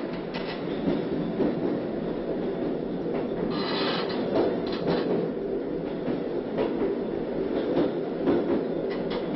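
Railway train running on the track: a steady rumble with irregular clacks of the wheels over the rail joints, and a brief brighter screech a little under four seconds in.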